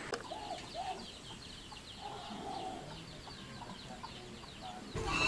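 Chickens clucking faintly in short calls, with a fast, high chirping going on behind them. A louder low rumble starts just before the end.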